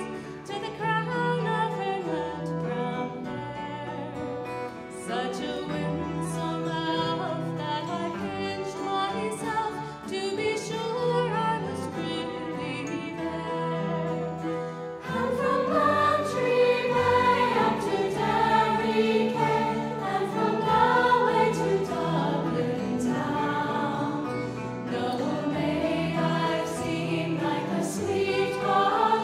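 Music with choral singing, sustained and swelling, growing fuller and louder about halfway through.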